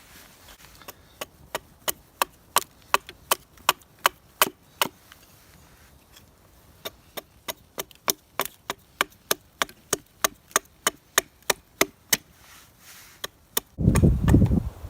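Light, quick chopping strokes into a piece of wood, about three a second, in two runs with a short pause between them: a spoon blank being roughed out. Near the end a loud low rush comes in.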